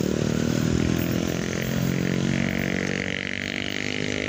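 Diesel-hauled passenger train running away down the track, its engine drone slowly fading as it recedes. A steady higher hiss grows in from about two seconds in.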